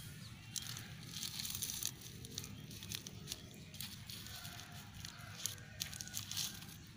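Plastic grafting wrap crinkling and rustling as it is handled, in small irregular crackles.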